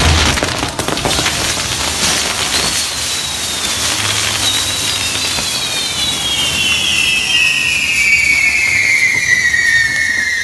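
Fireworks on a burning torito (pyrotechnic bull): crackling and popping at first, then a couple of long overlapping whistles that slide slowly down in pitch.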